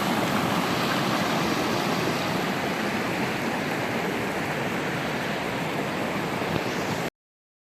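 A waterfall's steady rush of falling water, cutting off suddenly near the end.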